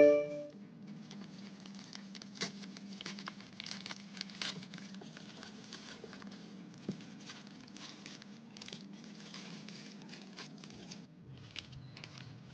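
Plastic packaging crinkling and rustling as it is handled and pulled open, in irregular bursts of crackles. It opens with a brief ringing clink.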